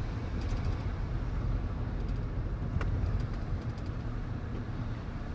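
Steady engine and road rumble inside the cabin of a Ford F-150 pickup truck on the move, with a few faint ticks.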